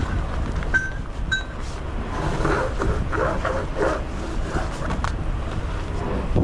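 Wind rumbling on the microphone, with two brief high metallic clinks about a second in.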